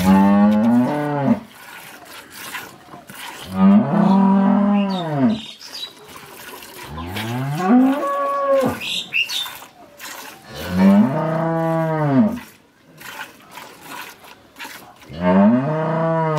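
Cow mooing five times, about every three to four seconds. Each moo lasts one to two seconds and rises then falls in pitch; the last is cut off at the end.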